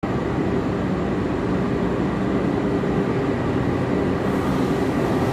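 Passenger train arriving at a station: the steady, loud rumble of the diesel locomotive and carriages, with a few held low engine tones and more hiss from the wheels coming in about four seconds in.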